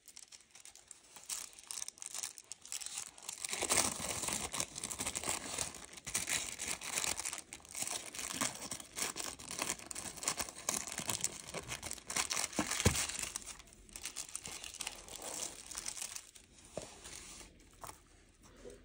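Thin tissue wrapping paper crinkling and rustling as it is folded back and handled, with a single sharp click about two-thirds of the way through. It tails off near the end.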